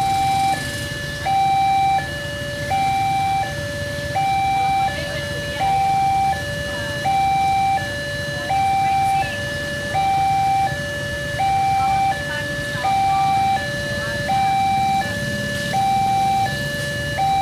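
Indonesian railway level-crossing warning alarm sounding, an electronic two-tone signal alternating steadily between a higher and a lower tone, each held about 0.7 s, warning that a train is approaching. A low rumble of waiting motorbike traffic sits beneath it.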